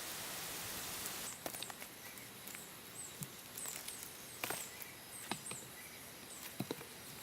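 Quiet outdoor ambience: a soft steady hiss, then scattered light clicks and taps with faint short high chirps from about a second in.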